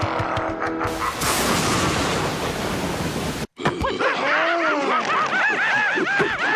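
Cartoon soundtrack: a held music chord with sharp hits, then a loud rushing noise that cuts off abruptly about three and a half seconds in. After the cut come repeated high, chattering animal-like cries.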